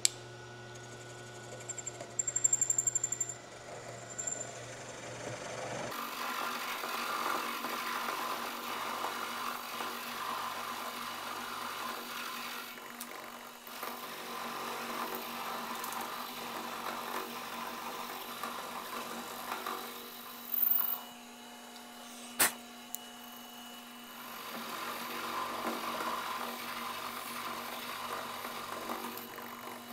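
Vertical milling machine slotting a metal bracket with a 3/8-inch end mill: a steady cutting noise over the spindle's hum. The noise gets abruptly louder about six seconds in, drops away twice, once with a single sharp click, then resumes.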